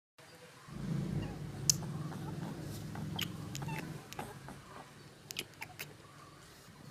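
Pet rabbit making a low, rapidly pulsing rumbling vocalisation for about three seconds, starting about a second in. Sharp little clicks are scattered through it and keep coming after it stops.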